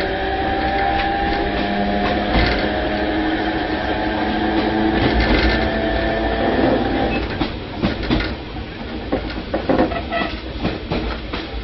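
Tobu 5050 series electric train (5160F) running, heard from inside the car: its nose-suspended traction motors and gears give a whine of several steady tones over rumble and rail clatter. About seven seconds in the whine fades out and irregular clatter and knocks carry on.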